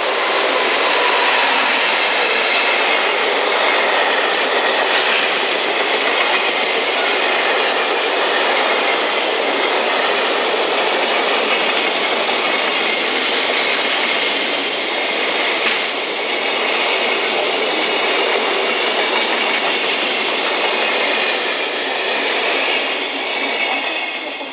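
A 16-car JR Freight container train hauled by an EF210 electric locomotive passing at speed: a steady loud rumble and clatter of wheels on rail with scattered clicks. It swells in the first second as the locomotive arrives and fades near the end as the last wagon goes by.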